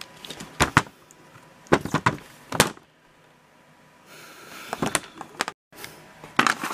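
Sharp clicks and knocks from an airsoft M4's parts being handled while the motor is worked into the pistol grip, in a few short clusters, with a brief dropout to silence near the end.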